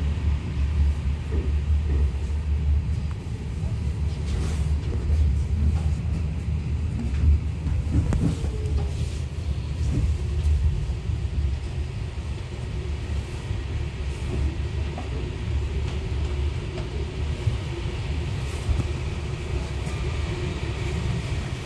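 Steady low rumble inside a Kawasaki R62 subway car rolling slowly into the station, with a faint steady whine from the running gear coming in about a third of the way through.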